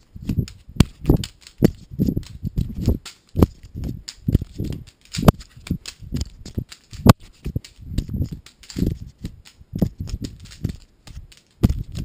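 Handling noise from a camera being juggled: dull thumps as it is caught and thrown by hand, several a second in an uneven rhythm, mixed with sharp plastic clicks from the Rubik's cube being caught and turned.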